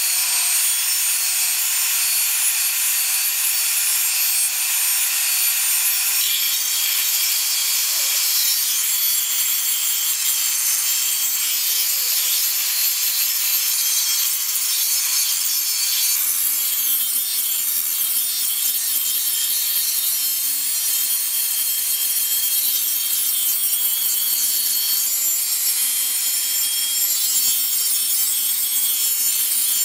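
Electric angle grinder running steadily, its abrasive disc grinding rust off a steel knife blade, with a steady motor whine under the harsh scraping of disc on metal.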